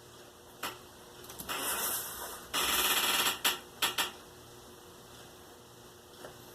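Cardboard being handled and scraped: a click, then a run of rubbing scrapes, the loudest about halfway through, ending in three short strokes.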